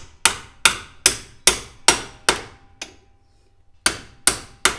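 Hammer blows driving the kingpin up out of an MG TC front stub axle: sharp metal strikes about two and a half a second, each ringing briefly. A pause of about a second falls after the middle, then the strikes resume.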